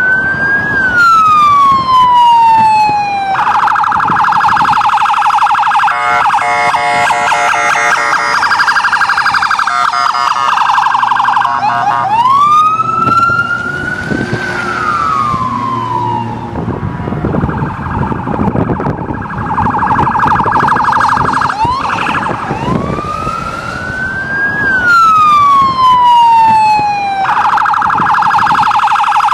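Electronic police siren cycling through its modes: a slow wail that rises and falls, switching to a fast, rapidly pulsing yelp and back again. At times two siren tones sound together.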